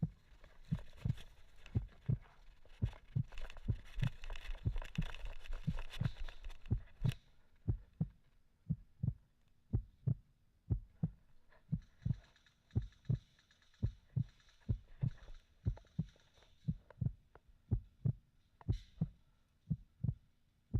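Regular low thumps about twice a second, at walking pace: footsteps jolting a camera carried on the body, with rustling for a few seconds near the start.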